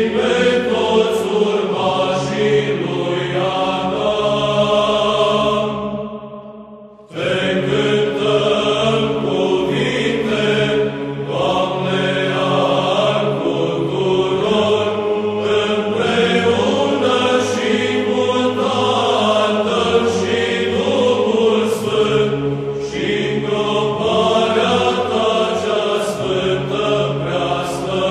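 Unaccompanied Orthodox church choir chanting a slow hymn, with voices moving over a steady held low note. The singing fades away about six seconds in, and a new phrase starts abruptly a second later.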